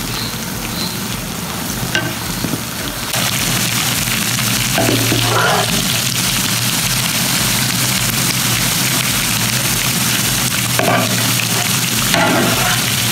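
Battered chicken pieces deep-frying in hot oil, a steady sizzle that grows louder about three seconds in, with a spatula and wire skimmer stirring and clinking against the pan now and then.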